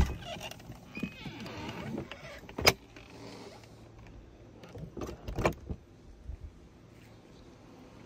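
Truck camper entry door being opened. The latch clicks, then the door rattles and scrapes as it swings, with a sharp clack about two and a half seconds in. A few knocks and thuds follow around five seconds.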